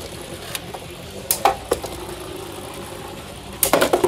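Plastic Beyblade Burst spinning tops on a stadium floor: a low steady whir, with a few sharp clicks about a second and a half in, then a burst of dense clattering near the end.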